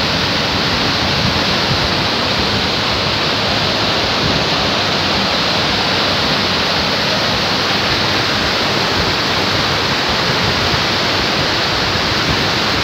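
Steady rush of fast-flowing water, an even noise with no breaks.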